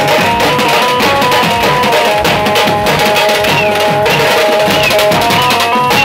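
A brass-and-pad band playing live: dense, fast drumming on bass drum and snare, with a melody moving in steps above it.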